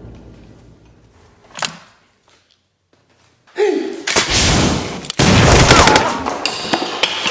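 A single sharp click, a near-silent pause, then a loud sustained burst of rapid Nerf blaster fire starting about three and a half seconds in, with a brief shout as it begins.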